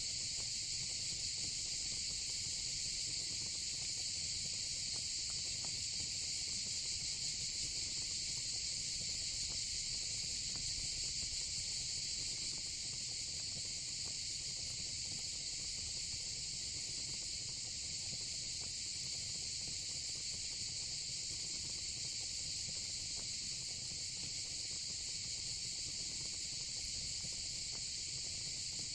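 Steady, high-pitched chorus of crickets and cicadas, unbroken throughout, with faint crackling of a wood fire and a low rumble underneath.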